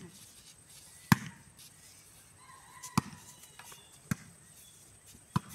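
Volleyball being struck by bare hands and arms during a rally: four sharp slaps, one to two seconds apart, the first the loudest.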